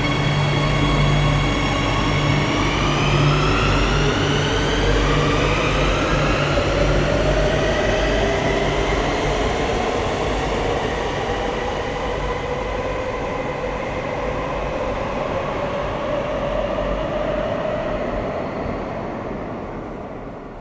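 Madrid Metro Serie 8000 electric train pulling away: its traction motors whine in several tones that rise in pitch for the first half, then level off. The sound fades as the train draws away.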